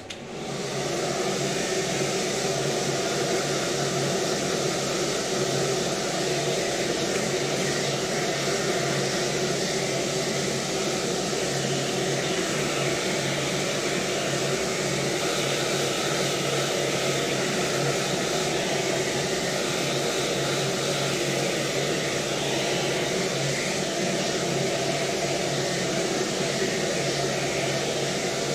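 Handheld hair dryer switched on and running steadily, blowing air on wet hair.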